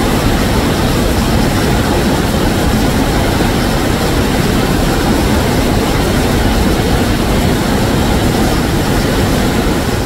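Waterfall's falling water rushing loudly and steadily, with no breaks. It fades a little near the end.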